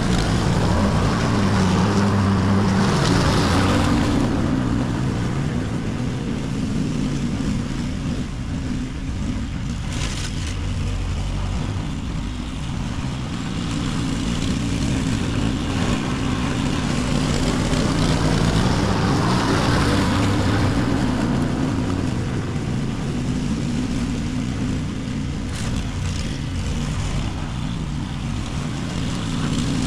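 Honda petrol walk-behind lawn mower running steadily while cutting long grass. It is louder in the first few seconds and again around the middle, and quieter in between.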